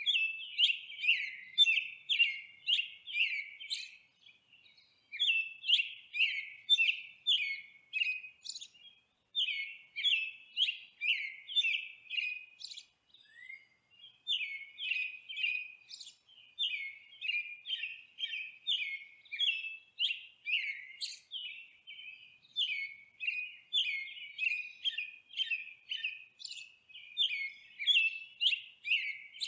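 A small bird chirping: quick, repeated chirps, about two to three a second, in runs broken by brief pauses, with no other sound behind them.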